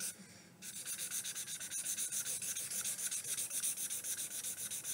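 Green marker colouring in on sketchbook paper: a steady run of quick back-and-forth scratchy strokes. There is a brief pause just after the start.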